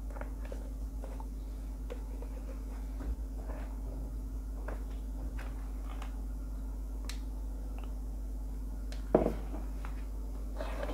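Quiet handling sounds of hand-sewing a paper booklet: faint scattered ticks and rustles of needle, thread and cartridge paper as the stitch is pulled through the punched holes and the pages are lifted. A single louder knock comes near the end, over a steady low hum.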